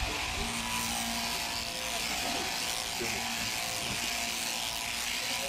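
Electric sheep-shearing handpiece running steadily, a constant buzz with the hiss of the cutter.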